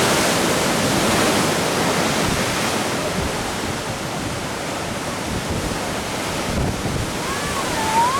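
Sea surf washing in steadily, with wind buffeting the microphone. Near the end, a short wavering whistle-like tone rises and falls.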